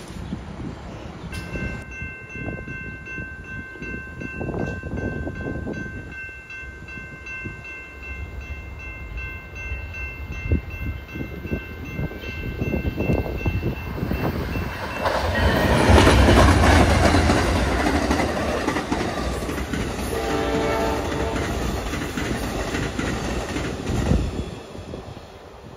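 Amtrak passenger train led by a GE P42DC diesel locomotive approaching and passing at speed. A grade-crossing bell rings steadily during the approach, and the locomotive and cars go by loudest about halfway through. A multi-chime horn then sounds for about two seconds as the double-deck Superliner cars run past.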